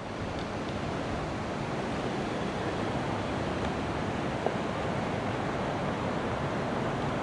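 Steady rushing wind noise outdoors, with no distinct events apart from a faint click about four and a half seconds in.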